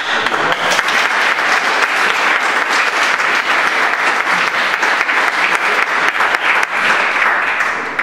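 Audience applauding, starting suddenly and fading near the end.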